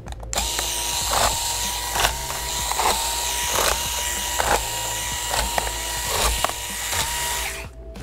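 Electric screwdriver running steadily with a constant whine as it backs out several laptop bottom-cover screws, with a light click about once a second. It starts just after the beginning and stops shortly before the end.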